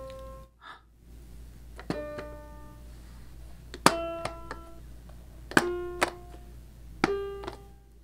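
Electronic tones from a plastic toy baby piano as its keys are pressed one at a time: four separate notes at different pitches, each starting with a click of the key and dying away within about a second.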